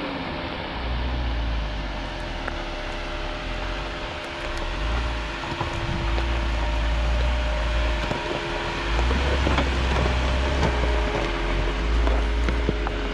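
Jeep Wrangler driving off-road: engine hum and tyres on rough, loose ground, with scattered small knocks and wind buffeting the microphone in long low gusts.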